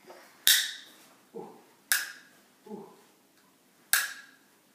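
Small hard plastic toy clicking sharply three times as it is worked in a toddler's hands, the clicks about one and a half to two seconds apart, with two shorter, softer sounds in between.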